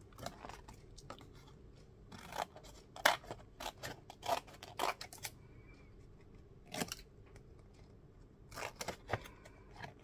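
Small scissors snipping through folded book paper: a series of separate, sharp snips at irregular intervals, with paper handled between cuts.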